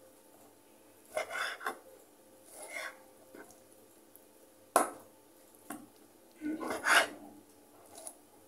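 Kitchen knife cutting boiled pork on a wooden cutting board: irregular knocks and scrapes of the blade against the board, with one sharp knock a little before the middle and a longer scraping cluster later on.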